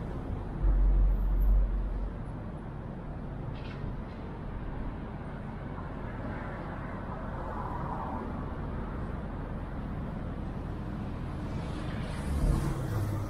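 City street traffic: a steady hum of passing cars, with a louder low rumble about a second in and a louder swell near the end.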